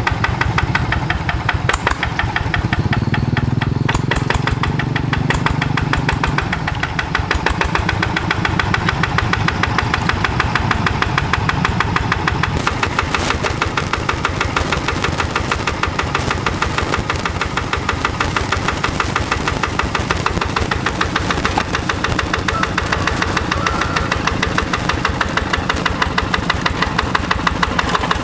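Yanmar diesel engine of a Quick G1000 two-wheel hand tractor running steadily, with a fast, even knocking beat.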